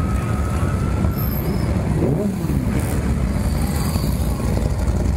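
Steady low rumble of several cruiser motorcycle engines riding slowly in a tight procession, with one engine's pitch briefly rising and falling about two seconds in.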